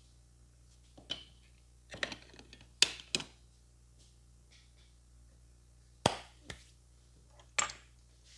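Sharp hand slaps and claps of a traditional Indian barber's head massage, about seven strikes, some in quick pairs, with pauses between.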